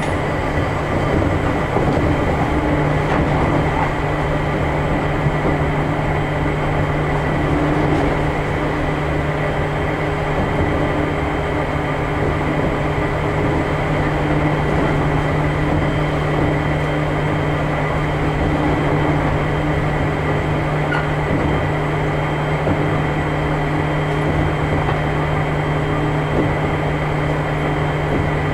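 A field-chopper-controlled Seibu New 2000 series electric train running at speed, heard from inside motor car KuMoHa 2463. The wheels and running gear give a steady rumble, with a low hum and a faint steady high whine over it.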